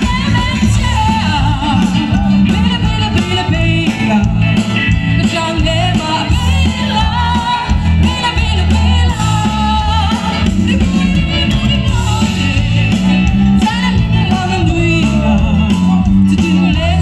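A band playing a pop-rock medley: a lead vocal sung over electric guitars and a heavy bass line, amplified through a PA, continuous throughout.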